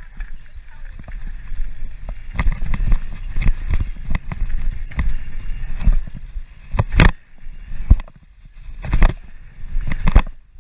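Mountain bike ridden fast over packed-dirt jumps: tyres rumbling on the dirt and wind buffeting the action camera's microphone, with three short, loud hits in the second half.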